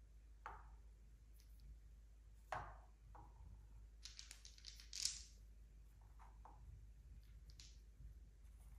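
Faint, scattered clicks and knocks of balls dropping and rolling on a handmade wooden marble-run slope, with a quick cluster of clicks about four to five seconds in.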